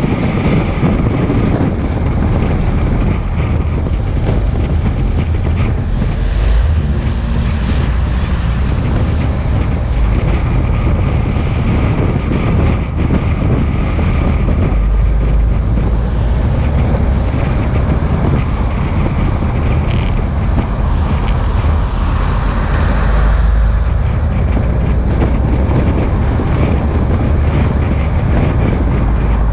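Steady, loud wind buffeting on the microphone over the low rumble of a moving vehicle, with a faint steady whine.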